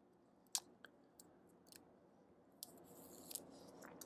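Near silence, broken by a few faint clicks and soft rustles of a cigar being handled in the fingers.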